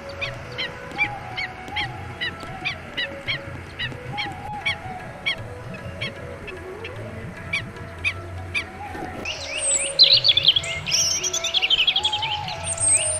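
Birds calling: a steady run of short, sharp calls, about three a second, over lower wavering notes, then a burst of fast, high songbird chirping from about nine seconds in.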